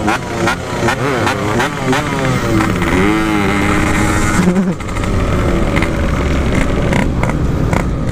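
Yamaha RX-King's 135cc two-stroke single, through a standard-look 'belek' exhaust, blipped up and down several times in the first half, its pitch rising and falling, then running steadily with wind noise from about halfway.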